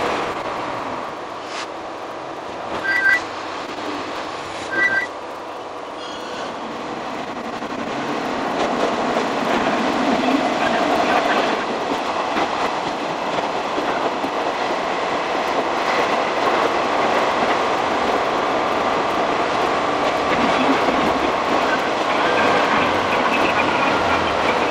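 Running noise of a Kanto Railway Joso Line diesel railcar heard from the cab, with rail clatter. It is quieter for the first few seconds, with two short two-note beeps about 3 and 5 seconds in, then grows louder as the train picks up speed and holds steady.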